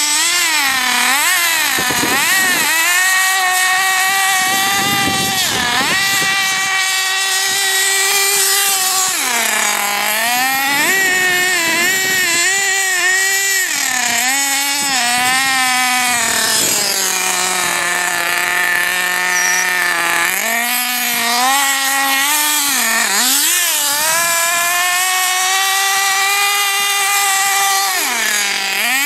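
Small nitro glow engine of an RC buggy being driven, a high-pitched buzz that revs up and down every second or two as the throttle is worked, settling briefly to a lower, steadier note about two-thirds of the way through.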